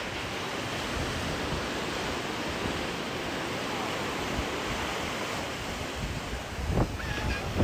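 Ocean surf washing onto a sandy beach under a steady wind, which rushes on the microphone.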